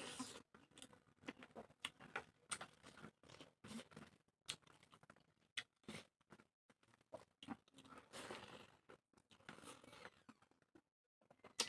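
Faint close-up eating sounds: chewing and mouth clicks, with scattered short taps and no steady rhythm.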